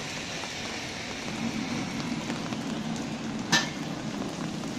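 Heavy rain falling steadily on a street, with one sharp knock about three and a half seconds in.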